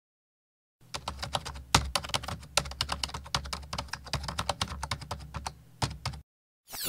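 Keyboard typing: a rapid, irregular run of clicks over a low hum. It starts about a second in and stops abruptly just after six seconds.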